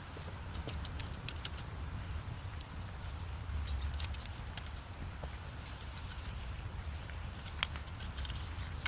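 Outdoor ambience: a steady low rumble, a steady high-pitched tone with short chirps on it every second or two, and scattered light clicks and taps.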